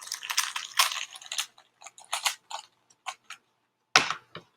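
An old, stiff plastic Rubik's cube being twisted by hand, its layers clicking and clacking in a quick run and then in scattered clicks, with one sharper click about four seconds in. It is a cube that makes lots of noise when turned.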